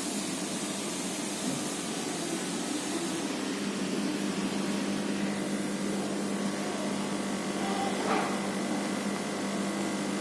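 A steady low hum over an even hiss, like running equipment or a fan, with a faint click about eight seconds in.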